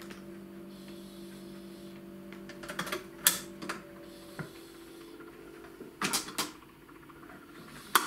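Fidelity UA7 record changer cycling before playback: a low steady hum, then a run of mechanical clicks and clunks from the changer mechanism and tone arm, loudest about three seconds and six seconds in.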